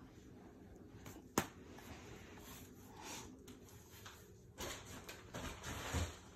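Objects being handled in a small room: a single sharp click about a second and a half in, then rustling and handling noise with a dull thump near the end.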